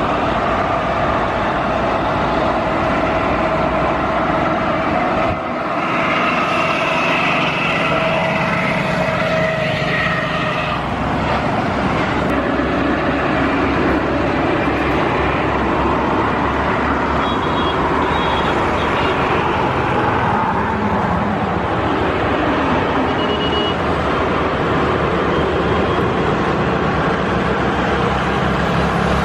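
Boeing 777-300ER's twin GE90 turbofan engines running at taxi power: a steady jet roar with a high whine over it as the airliner taxis. The sound changes briefly about five seconds in.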